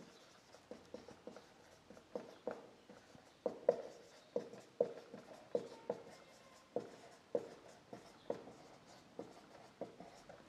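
Marker pen writing on a whiteboard: a faint string of short, irregular squeaks and taps, one for each stroke of the letters.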